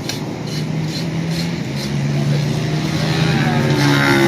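Motorcycle engine running, getting louder with its pitch rising toward the end.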